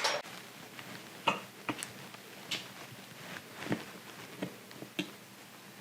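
Scattered small clicks and ticks of a Torx screwdriver bit working the lid screws out of a hard disk drive, about half a dozen spread irregularly over a few seconds.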